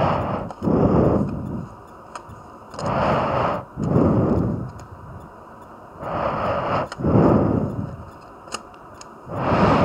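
A person breathing heavily close to the microphone, in and out about every three seconds: each breath in is a hiss, and each breath out blows on the mic with a low rumble.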